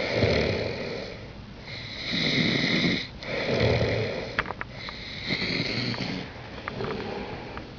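Snoring: a run of rough, noisy breaths about a second long, coming roughly every second and a half and growing fainter toward the end, with a few small clicks.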